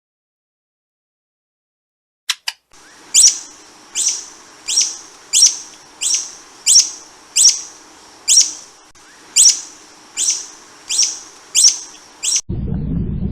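A small bird calling: about a dozen sharp, high chirps repeated at a steady pace, a little more than one a second, over a faint background hiss. A loud low rumble cuts in near the end.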